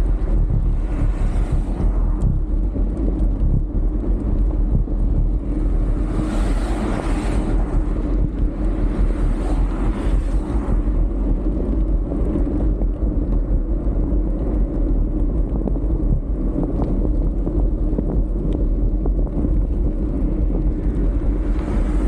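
Wind buffeting the microphone of a handlebar camera on a moving bicycle, over the steady rumble of a knobby mountain-bike tyre rolling on asphalt. Two louder rushes of noise come about six and nine seconds in.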